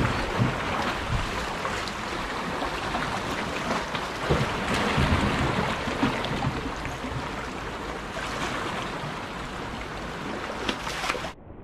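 Sea surf washing and swirling around shoreline rocks, with wind on the microphone and a few scattered knocks. Near the end the sound drops suddenly to a quieter, duller background.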